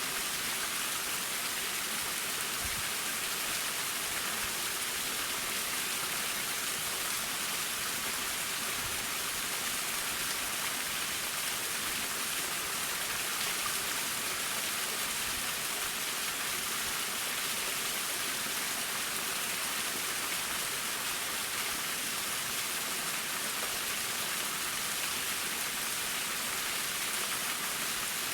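Waterfall: water falling and splashing in a steady, even hiss, mostly high-pitched.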